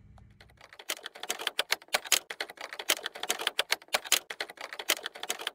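Typewriter sound effect: a rapid, uneven run of key clicks, several a second, starting about a second in.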